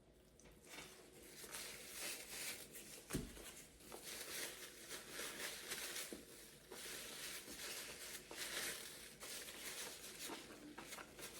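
Close-up eating sounds: a mouthful of food being chewed, with soft, irregular crinkling and crackling.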